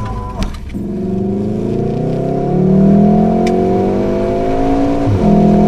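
Car engine accelerating, heard from inside the cabin: its pitch climbs steadily for about four seconds, then drops suddenly at a gear change and holds.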